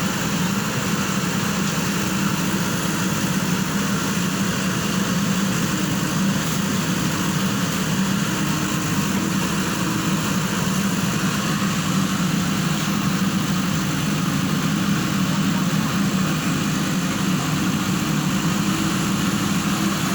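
JCB backhoe loader's diesel engine running steadily, a constant low drone.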